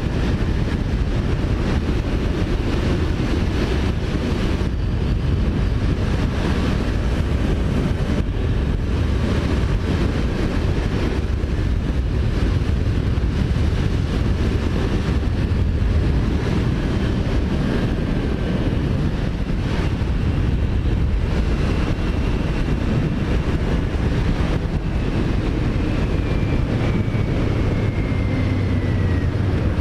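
Kawasaki Ninja 400 parallel-twin engine running at road speed under heavy wind noise on the microphone. The engine note falls gradually over the last few seconds.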